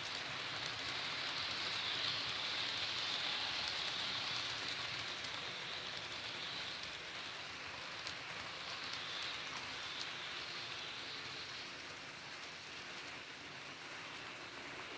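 HO scale freight cars rolling past on plastic-roadbed sectional track: a steady hissing rumble of small metal wheels on the rails, with a couple of faint clicks at rail joints. It eases a little near the end as the last cars go by.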